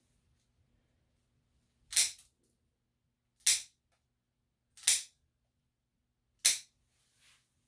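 Four sharp snips from a dog-grooming cutting tool, spaced about a second and a half apart.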